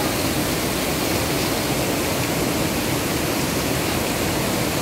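Water rushing steadily over small waterfalls and rapids in a rocky stream.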